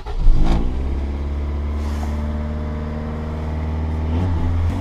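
Honda car's cold engine catching from the starter with the choke on, then running at a steady idle.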